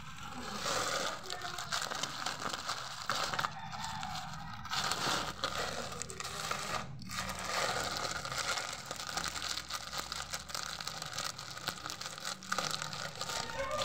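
Clear plastic bag of dry cat food crinkling and rustling as it is handled and tipped, in rough stretches with a few brief pauses.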